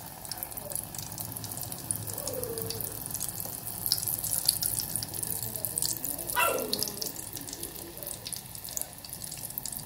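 Bolinho de chuva batter frying in hot oil: a steady sizzle dotted with many small crackles and pops. About six seconds in, a short falling squeal is the loudest single sound.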